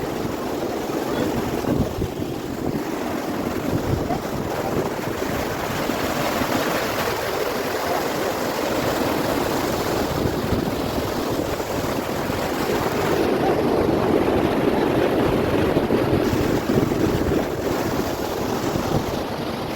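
Steady rush of water falling at a large waterfall, with wind buffeting the microphone in uneven low rumbles.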